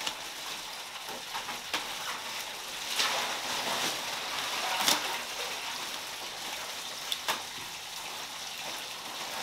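Ice cubes being emptied from plastic bags into a bathtub of water to make an ice bath: a steady fizzing, rattling wash of ice and water, with a few sharp clacks, the loudest about five seconds in.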